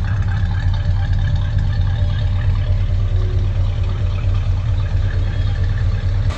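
1979 GMC Caballero's 350 V8 idling steadily at about 800 rpm through its custom-fabricated dual exhaust: a deep, even note that is not real loud.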